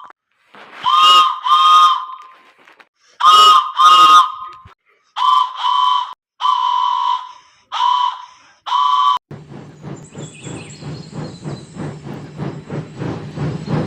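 A steam train whistle gives a series of short toots, two pairs and then four single blasts. About nine seconds in, the locomotive starts chuffing at a quick, steady rhythm with steam hiss.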